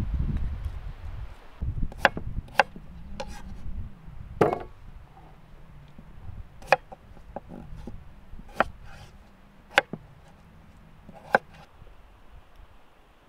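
Kitchen knife cutting a peeled potato on a wooden cutting board: about eight sharp knocks of the blade striking the board, spaced a second or two apart. A low rumble at the start cuts off about a second and a half in.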